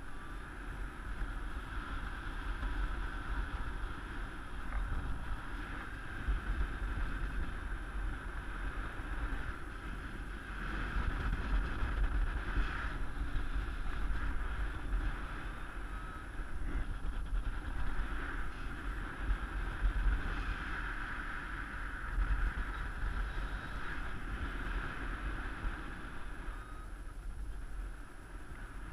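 Rushing air from paraglider flight buffeting the camera microphone: a heavy, gusty low rumble with a hiss above it, rising and falling unevenly.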